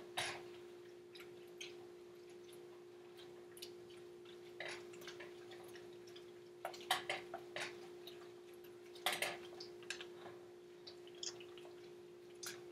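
Faint clinks and knocks of a spoon in a pot as boxed macaroni and cheese is stirred, heard through a video call over a steady low hum. The loudest knocks come about seven and nine seconds in.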